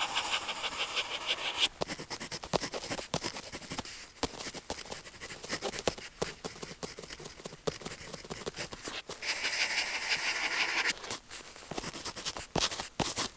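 Pen tip scratching on paper: two stretches of fast back-and-forth scribbling, one at the start and one about nine seconds in, with short strokes and light taps between them.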